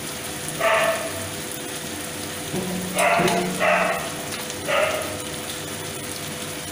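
Vegetables and spices frying in an aluminium kadai with a steady sizzle. Four short loud cries sound over it in the background.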